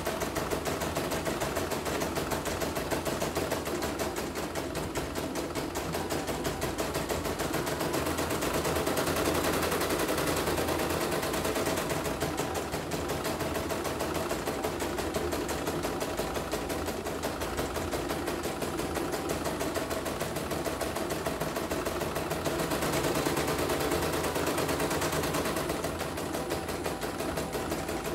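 CNY portable computerized embroidery machine stitching a design: the needle and rotary hook clatter in a rapid, steady run of stitches.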